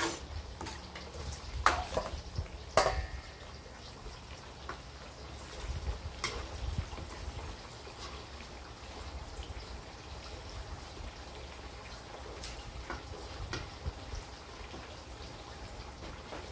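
Pork belly cubes cooking in a wok, bubbling and sizzling faintly over a steady low rumble. A few sharp knocks of the metal ladle against the wok come in the first several seconds.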